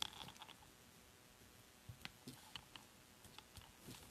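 Near silence with a few faint, short taps and clicks from handling a rubber stamp on its acrylic block against paper during stamping.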